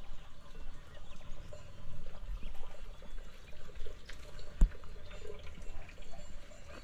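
Water trickling and splashing, with a sharp knock about two-thirds of the way in.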